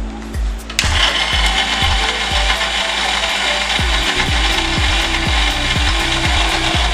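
Electric mixer grinder starting up about a second in and running steadily at full speed, with a coarse grinding noise as it works ground almonds, spices and melon seeds into a thick paste.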